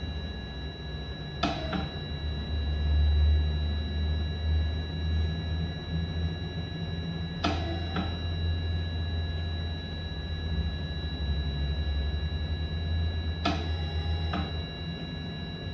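VITAL ventilator running, with a sharp click and a brief tone about every six seconds over a steady low rumble and a faint, steady high-pitched whine.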